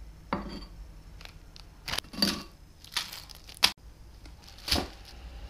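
Plastic instant-noodle seasoning sachets torn open and crinkled in several short separate rustles, with one sharp click about three and a half seconds in.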